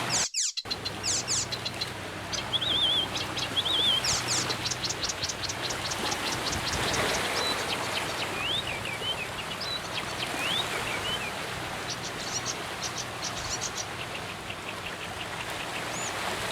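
Wild songbirds singing and calling: quick series of high chirps, short warbling trills and a few slurred swooping notes, over a steady background hiss. The sound drops out briefly just after the start.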